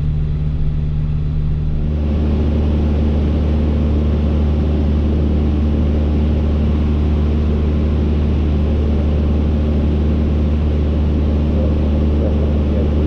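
Cessna 152's four-cylinder Lycoming piston engine and propeller droning steadily in level cruise. The tone shifts slightly about two seconds in.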